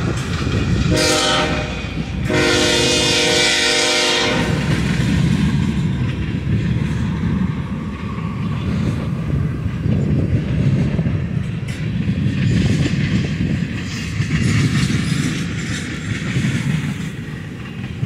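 Freight train of tank cars rolling past with a steady low wheel rumble and rail clatter. A multi-tone train horn sounds a short blast about a second in, then a longer blast that ends around four and a half seconds in.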